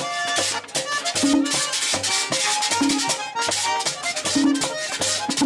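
Perico ripiao (merengue típico) played live: a button accordion plays a melody of short held notes over a hand-beaten tambora drum and the steady scraped rhythm of a güira.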